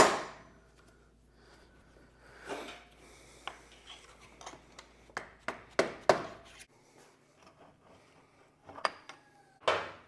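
Motorcycle front axle being knocked through the fork with a hammer: a loud knock at the start, then irregular short metal taps and knocks, a quick run of four about five to six seconds in and two more near the end.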